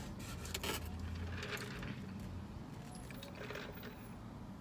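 Handling noises of a foam drink cup and a paper-wrapped burger being picked up and shifted: a few sharp clicks and rustles in the first two seconds, then a quieter sip through a straw near the end, over a steady low hum.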